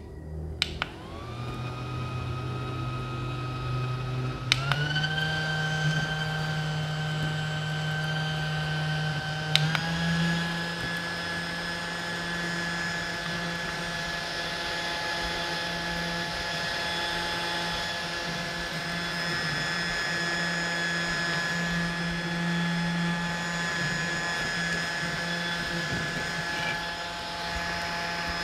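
Small motor of a portable bladeless mini fan whining: switched on with a button click about a second in, then clicked up a speed twice, near four and near ten seconds in, each step raising the pitch. It then runs steadily at its third, strongest speed.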